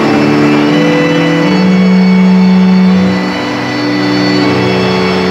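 Keyboard playing long held chords that change every second or two, over the noise of a large crowd.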